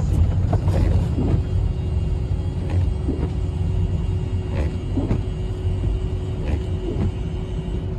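Steady low road and engine rumble heard inside a car's cabin while driving.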